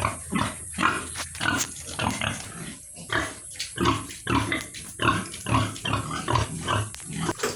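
Landrace pigs grunting, a steady run of short grunts about two or three a second.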